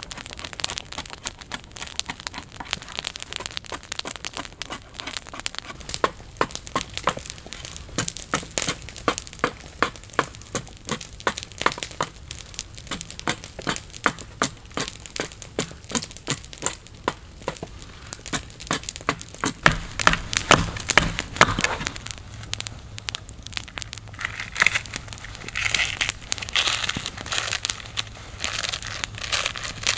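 Open wood fire of dry twigs and branches crackling and popping, with many sharp snaps a second.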